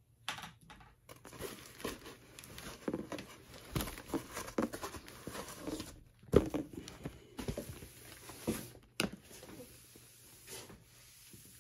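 Cardboard boxes scraping and rustling against each other as a boxed diecast model is slid out of a shipping carton, with scattered taps and one sharp knock about six seconds in.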